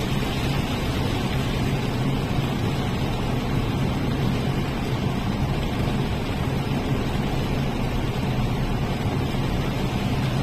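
Steady engine drone: a constant low hum under an even rushing noise, with no change in speed.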